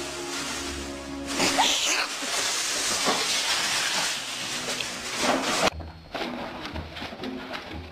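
Background music. About a second and a half in, a loud hissing noise with a few brief squeals joins it and cuts off suddenly near the end.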